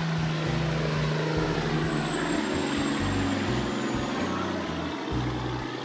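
Loaded logging truck's diesel engine running as it drives along the road, easing off slightly near the end.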